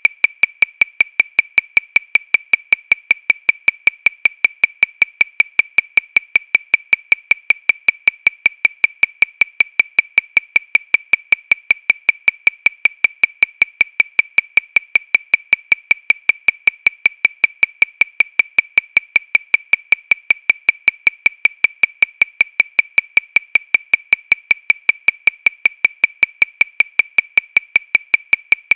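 Metronome clicking steadily at 314 beats per minute, about five short high clicks a second, all at the same pitch and level.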